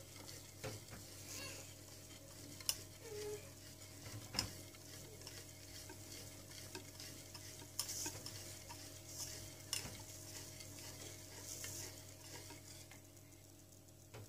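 Thick, hot, starch-thickened milk-and-Oreo mixture with chocolate pieces stirred in a stainless steel pot: soft wet scraping swishes with a few light taps of the utensil on the metal. The stirring stops about a second before the end, leaving only a faint steady hum.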